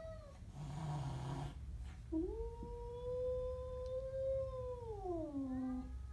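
Siamese cat growling at another cat: a short hissing growl about a second in, then a long, low yowl held steady and falling in pitch near the end.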